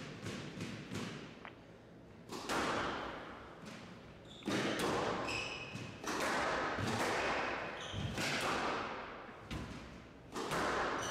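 A squash rally in an echoing glass-walled court: a string of sharp thuds as the ball is struck by the rackets and hits the walls, with short high squeaks of shoes on the wooden floor.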